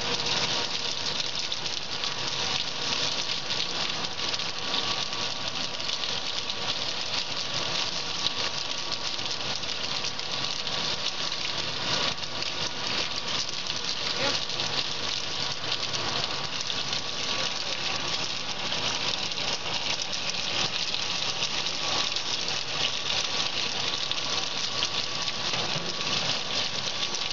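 Corn snack extruder running steadily while it pushes out corn curls: a continuous, even machine noise with a strong high hiss and faint steady tones underneath.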